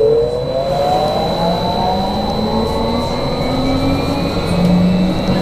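Inside a BKM 43300D trolleybus, the electric traction drive whines and the whine rises slowly in pitch as the trolleybus accelerates. A steady high electrical tone and the rumble of the running gear go on underneath.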